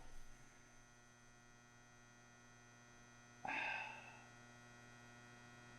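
Faint, steady electrical mains hum. A brief soft noise comes about three and a half seconds in.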